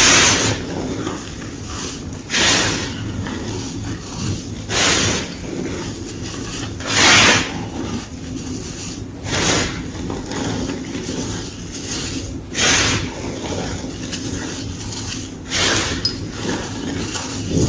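Soft, crumbly gym chalk block crunching in short bursts, one crunch every two to three seconds, about seven in all.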